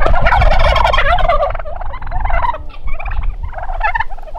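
A flock of Rio Grande wild turkeys gobbling: a loud chorus of overlapping gobbles for the first second and a half, then single gobbles about once a second.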